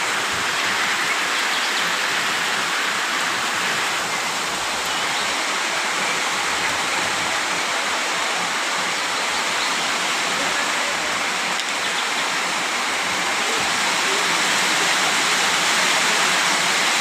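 Steady rainfall: a dense, even hiss of rain that holds level throughout, swelling slightly near the end.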